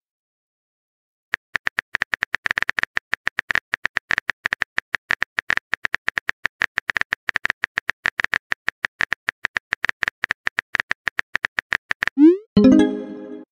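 Simulated phone-keyboard typing clicks, several a second and irregular, as a message is typed in a texting-story app. About twelve seconds in they stop, followed by a short rising swoop and a brief pitched tone, the app's message-sent sound.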